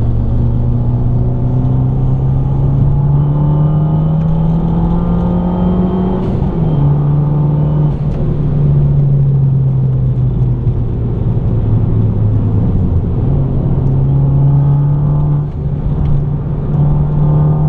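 Fiat 500 Abarth's turbocharged 1.4-litre four-cylinder engine under way, heard from inside the cabin: the engine note climbs steadily under throttle for about six seconds, drops sharply at a gear change, sags, then steps back up around thirteen seconds in and holds.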